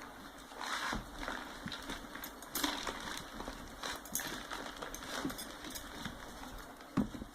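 Handling of a sack-cloth (jute) packing wrapper as it is worked off a cardboard box: scattered rustles and scrapes of the coarse cloth, with a sharper knock about seven seconds in.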